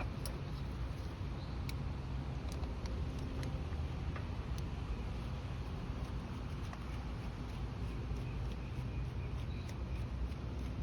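A steady low rumble with scattered faint small clicks and taps.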